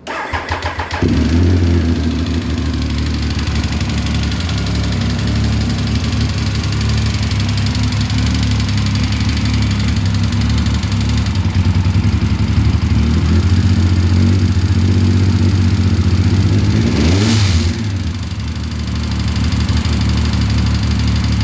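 Triumph Speed Triple's three-cylinder engine starting and catching within about a second, then running steadily, with one short rev that rises and falls about three-quarters of the way through. The owner asks whether it has a knocking noise.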